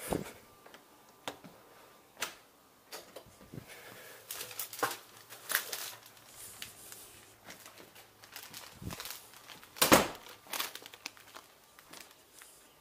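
Cellophane wrap on an Easter basket crinkling and rustling as the basket is carried, with scattered knocks and clicks of handling; the loudest knock comes about ten seconds in.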